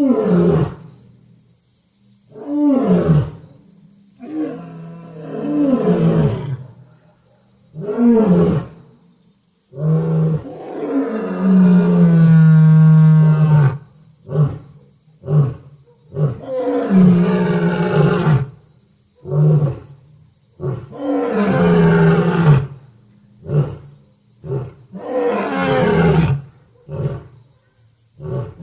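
Lion roaring: a run of about a dozen separate roars and grunts, the longest lasting about four seconds near the middle.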